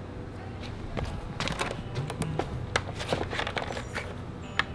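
Irregular light clicks and taps over faint background music.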